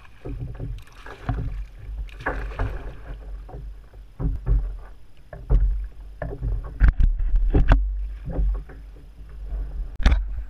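Water splashing and sloshing around a fishing kayak, with a hooked fish splashing at the surface beside it near the start. Sharp knocks and bumps of gear against the plastic hull come through, strongest about seven to eight seconds in and again near the end, over a steady low wind rumble on the microphone.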